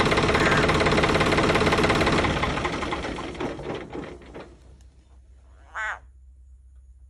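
Frog caught in a snake's jaws giving distress calls: a loud, rapid pulsing croak that fades away from about two seconds in, then one short wavering cry near the end.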